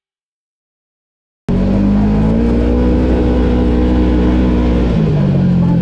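Silence, then a motor vehicle's engine cutting in abruptly at full level and running steadily, its pitch stepping down slightly near the end.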